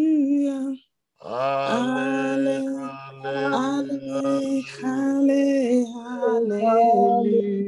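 Worship singing of a slow praise chorus, a voice drawn out over long held, gliding notes, with a short break about a second in. A steady low tone sounds under the singing for a few seconds.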